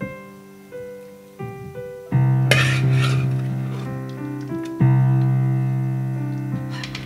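Background piano music, notes struck and left to ring, louder from about two seconds in. A short scrape of a serving spoon on a dish comes about two and a half seconds in and again near the end.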